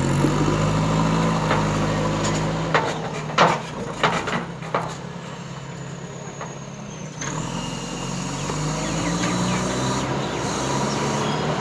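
JCB backhoe loader's diesel engine working under load: it revs, eases off in the middle and picks up again near the end. A few sharp knocks come about three to five seconds in.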